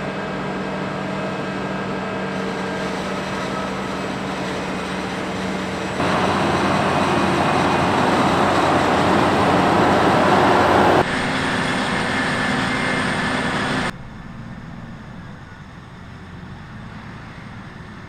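Heavy farm machinery running through maize chopping: the engines of a self-propelled forage harvester and tractors. The sound changes abruptly several times and is loudest from about six to eleven seconds in.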